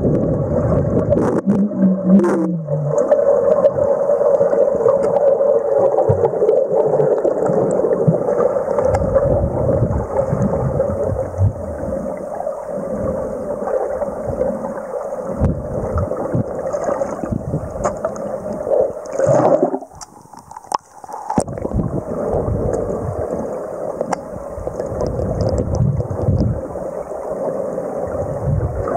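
Muffled underwater noise picked up by a submerged camera: a steady rushing hum with scattered clicks and gurgles, briefly dropping away about twenty seconds in.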